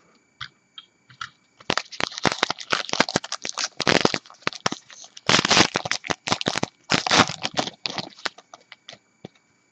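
Baseball card pack wrapper crinkling and being torn open by hand, a run of crackling with louder tearing about five and a half and seven seconds in.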